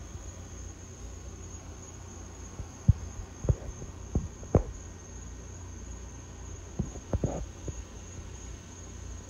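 A steady high insect trill over a low hum, broken by short dull knocks of the handheld camera being handled. The knocks come in two bunches, about three to four and a half seconds in and again about seven seconds in.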